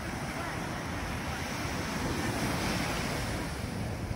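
Ocean surf breaking and washing on the shore, a steady rush that swells slightly about halfway through, with wind buffeting the microphone.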